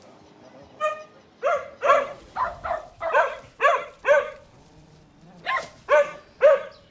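A dog barking, about ten short barks in two runs with a pause of about a second in the middle.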